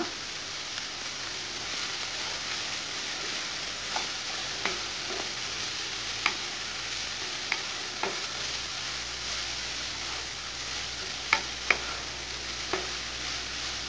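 Diced snake gourd sizzling as it sautés in oil in a non-stick kadai, with a steady hiss. A wooden spatula stirring it knocks against the pan now and then, loudest twice in quick succession near the end.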